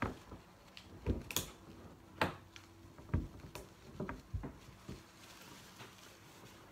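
Dull scissors snipping and clicking at a zip tie on a cloth shipping bag, with the bag being handled against the table: a string of irregular sharp clicks and knocks.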